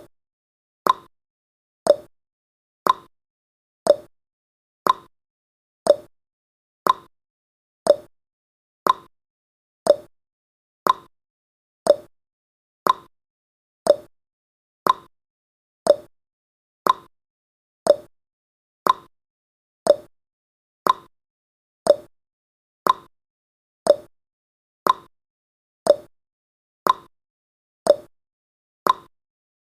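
Countdown timer's ticking sound effect: short, sharp ticks, one each second, each dying away quickly.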